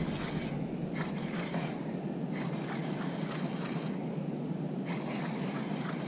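Fishing reel cranked in short spells, a whirring that starts and stops every second or so, as a hooked fish is reeled in. Steady wind and water noise runs underneath.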